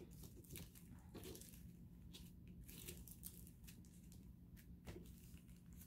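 Faint, scattered crinkles and soft clicks of small plastic zip bags of diamond-painting drills being handled and set down.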